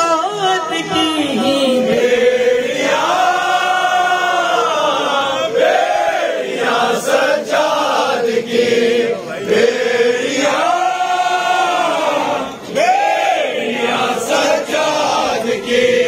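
Noha, a Shia mourning lament, sung unaccompanied by a male reciter through a microphone in long, drawn-out phrases that rise and fall in pitch, with a crowd of mourners chanting along in chorus.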